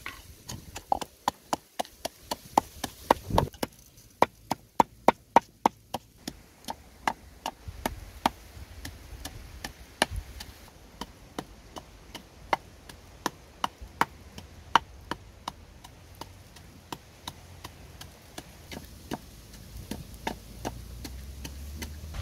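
Wooden pestle pounding chillies and salt in a wooden mortar: a run of sharp wooden knocks, about three a second at first, then slower and softer after about six seconds.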